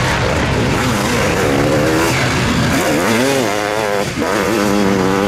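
Sidecarcross racing outfits' engines revving hard, their pitch rising and falling with the throttle over the course, with a brief drop in throttle about four seconds in.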